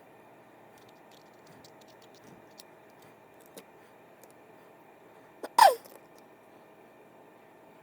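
Faint clicks of small fishing-reel parts and tools being handled. About five and a half seconds in comes one short, sharp sound that falls in pitch.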